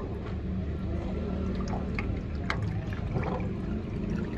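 Old engine oil pouring from a car's oil pan drain hole into a metal drain tray, a steady trickle, over a steady low hum with a few small clicks.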